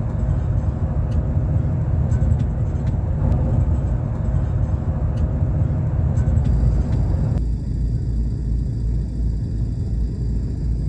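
Road and engine rumble heard inside a car cabin while driving: a steady, loud low rumble. Its tone changes abruptly about seven seconds in.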